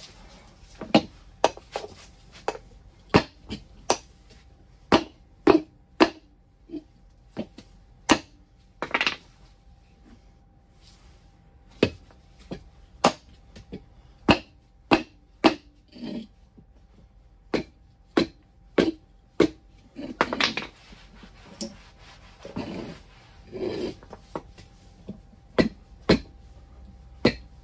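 Irregular sharp knocks, roughly one or two a second, of a hammer striking tire spoons as a knobby tire is worked off an electric scooter's hub-motor rim. A few longer scraping sounds come about two-thirds of the way through.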